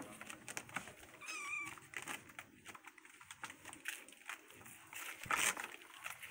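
A kitten mews once, a short high wavering cry about a second in, over the clicks, scratches and rustles of kittens clambering on a sisal scratching post and batting a wire toy, with a louder rustle near the end.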